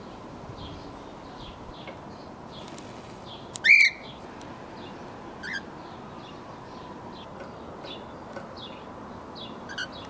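Cockatiels calling: one loud, short curving chirp a bit under four seconds in, then two shorter chirps, one about halfway and one near the end, over a steady run of faint, high chirping.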